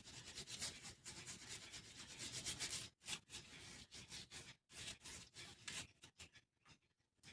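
Rapid rubbing strokes while cuckoo clock parts are cleaned by hand. The strokes stop about six seconds in.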